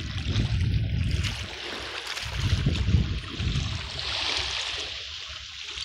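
Wind gusting on the microphone for the first three seconds, over small waves lapping at the shore. From about four seconds in, a steadier hiss of water washing on a pebble beach.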